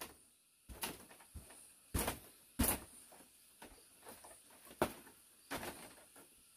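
Irregular hard knocks and clatters, about five over several seconds, the loudest about two and a half seconds in.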